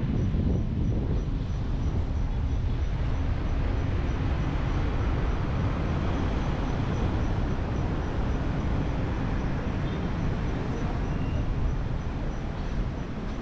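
Steady low rumble of a car driving on city roads: tyre, engine and surrounding traffic noise.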